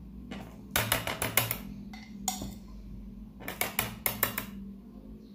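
Metal spoon clicking and scraping against dishes as black olives are spooned into a plastic mixing bowl of batter: two quick runs of clicks, about a second in and again past the middle.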